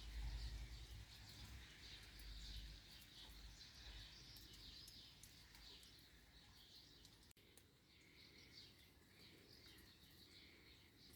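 Faint birdsong: small birds chirping repeatedly in the background. A low rumble sits under it for the first few seconds.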